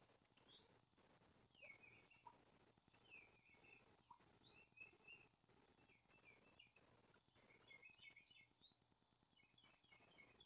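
Near silence, with faint small-bird chirps repeating in the background.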